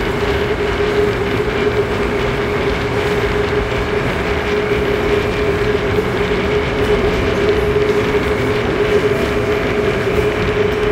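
Onboard sound of a Korail Line 4 electric train with Alstom traction equipment running at steady speed: a constant whine of unchanging pitch over the rumble and clatter of wheels on rail.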